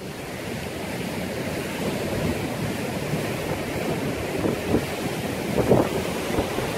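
Rough storm surf breaking steadily against the shore, with wind buffeting the microphone in a few short gusts, the strongest a little before the end.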